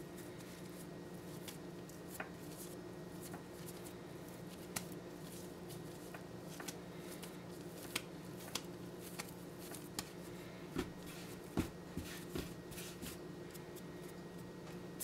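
Hands shaping a ball of bread dough on a floured granite countertop, tucking it under into a round loaf: faint, scattered soft pats and taps, a few sharper ones in the second half, over a steady low background hum.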